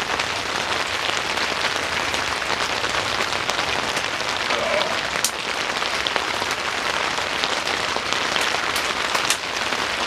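Steady rain falling on a tent roof, with a few sharper drop ticks about halfway through and near the end.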